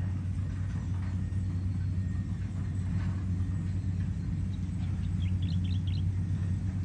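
Rice combine harvester's diesel engine running with a steady low drone.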